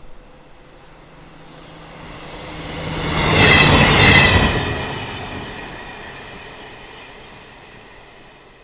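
A train passing by: it grows louder, is loudest about four seconds in with a high ringing edge over the rumble, then fades away.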